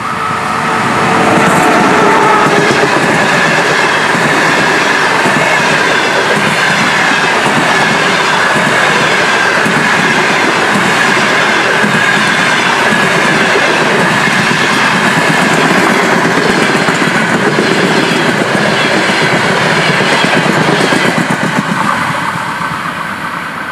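A ChS4 electric locomotive and its passenger coaches pass close by. Their wheels clatter steadily over the rail joints. The noise swells in the first couple of seconds as the locomotive goes past, holds level while the coaches run by, and fades near the end.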